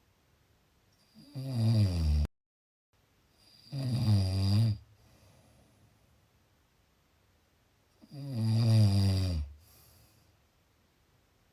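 A person snoring: three low snores, each about a second long, with quiet stretches between them. The first snore cuts off abruptly.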